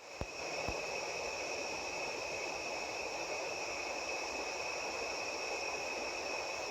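Night insect chorus: a steady, unbroken high trilling of many insects. There are two soft knocks in the first second.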